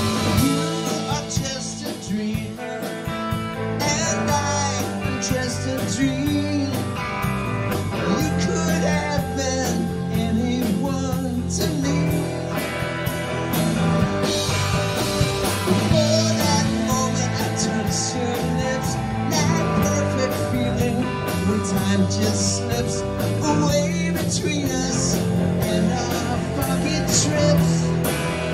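A live rock band playing at full tilt: electric guitars, bass, and a drum kit with cymbals, with a male lead vocal sung over them.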